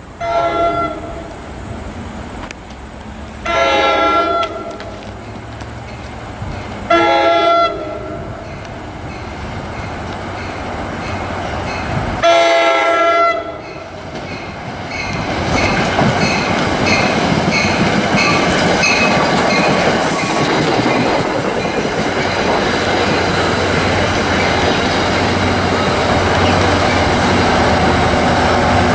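Diesel commuter train sounding its multi-note horn in four blasts, each about a second long and a few seconds apart, as it approaches a grade crossing. The crossing bell dings steadily as the train arrives, and then it rumbles past close by with wheels clacking over the rails, loud and steady to the end.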